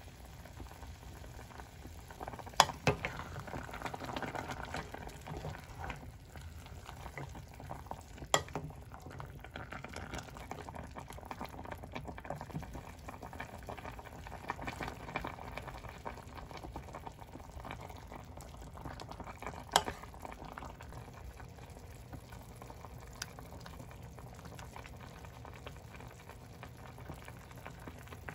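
Pork kimchi stew boiling in a stainless steel pot, a steady bubbling, with a few sharp knocks scattered through.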